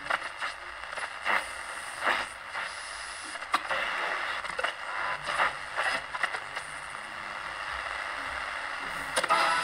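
Philips Philettina DL-384 three-band transistor radio being tuned between stations: hiss and static with crackles and pops as the dial moves. Near the end a station with music comes in.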